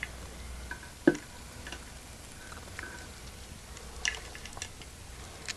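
Scattered light clicks and taps, with one louder knock about a second in and a few quick clicks near the end.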